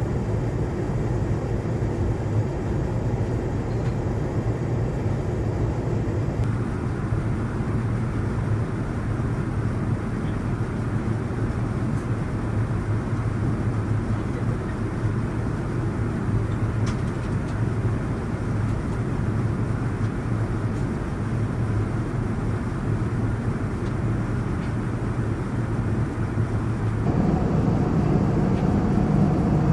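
Steady airliner cabin noise inside a Boeing 787-9: a constant rushing drone with a low hum. Its character changes abruptly twice, about six seconds in and near the end.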